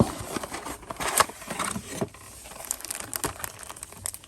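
Packaging of a trading card box set crinkling and rustling as it is opened by hand, with many small clicks and snaps. It is busiest in the first two seconds and thins out to scattered clicks.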